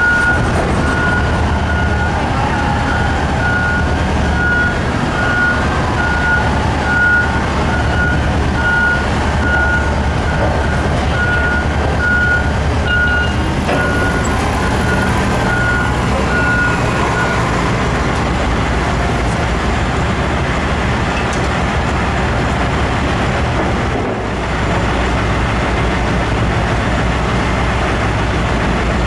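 Huge mining haul truck's diesel engine running with a steady low drone, while a warning beeper sounds in a regular series of beeps for the first half or so. The drone changes briefly about three-quarters of the way through.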